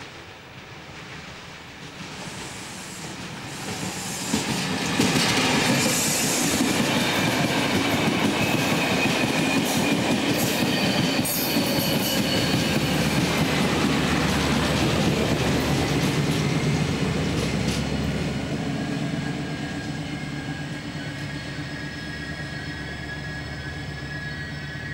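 Intercity train hauled by an Adtranz diesel-electric locomotive passing close by, the engine and wheels on the rails swelling over the first five seconds, holding loud, and easing off after about eighteen seconds. A thin, high wheel squeal rings over the rolling noise.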